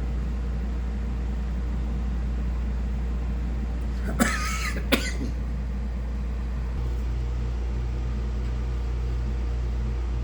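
Two 12,000 BTU air conditioners running in cool mode with a steady low hum. About four seconds in, two brief sharp noises come half a second apart, the loudest sounds here.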